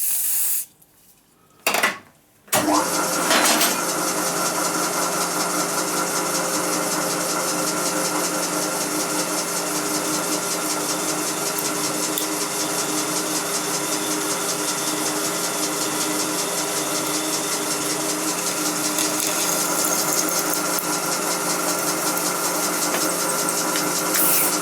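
Machine tool's electric spindle motor starting about two and a half seconds in, then running steadily with an even hum and whine, turning a 28 mm hole saw at about 250 RPM. Two short bursts of noise come before it starts.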